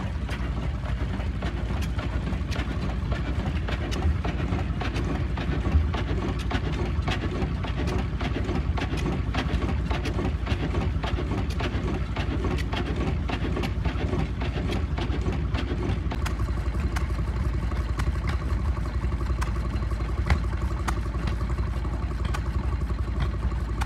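Vintage stationary engines running: a steady low chugging with many sharp ticks scattered through it.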